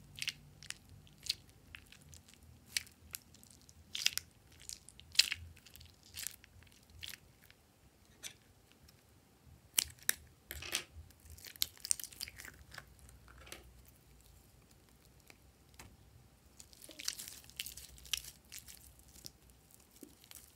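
Fingers squeezing and pulling at a soft rubber balloon toy, making irregular sticky crackles and clicks that come in clusters.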